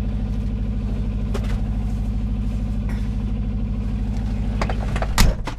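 Semi-truck's diesel engine idling steadily, heard from inside the cab, with a few light knocks and rustles and one loud thump about five seconds in.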